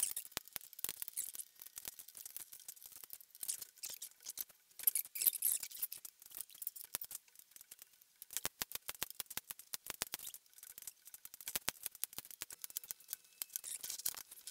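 Small walnut and maple blocks clicking and knocking lightly against one another as they are handled and set into an end-grain cutting-board glue-up: a quick, irregular run of light wooden clicks, busiest past the middle.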